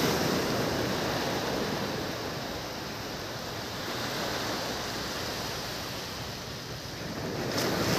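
Sea surf washing over the sand: a steady rush of breaking waves that eases off mid-way and swells again near the end.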